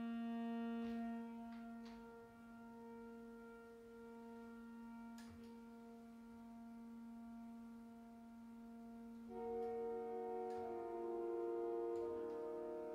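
Organ playing slow sustained chords: a long held low chord sinks quieter after about a second, then about three quarters of the way through a fuller, louder chord enters with notes moving above it.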